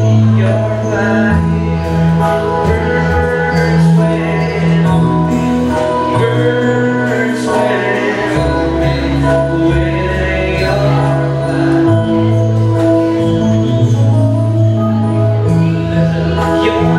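A slow Christian worship song: singing over held chords whose bass note changes every couple of seconds, with light jingling percussion.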